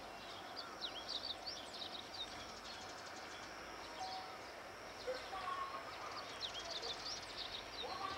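Small birds chirping in many short, quick calls over a faint distant sound of an approaching diesel train. The train's sound comes up a little in the second half, with the train still far off.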